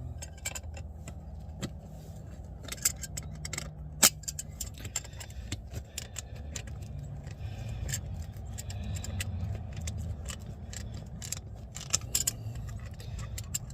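Light metallic clicks and clinks of hand tools working a rusted, seized threaded part out of a 1959 Ford F100's drum brake assembly, irregular throughout with one sharper click about four seconds in, over a steady low hum.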